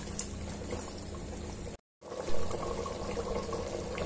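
Thick tripe curry bubbling in an open pressure cooker, stirred with a wooden spatula during the first couple of seconds, with a short break in the sound about halfway. It is being cooked down until the oil separates on the surface.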